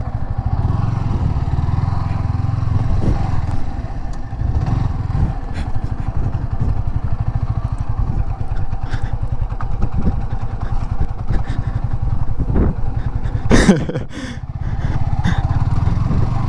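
Motorcycle engine running steadily at low speed on a rough, muddy track, with scattered small knocks and rattles. About three-quarters through, a short sharp sound cuts in and the engine briefly drops.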